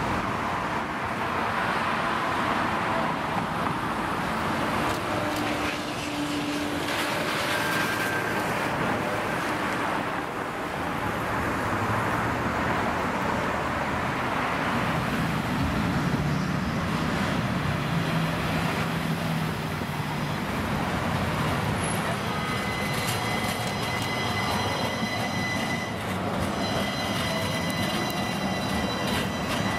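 City street traffic with cars passing. Then an electric streetcar rolls past close by, and a steady high whine of several tones starts about three-quarters of the way through and carries on.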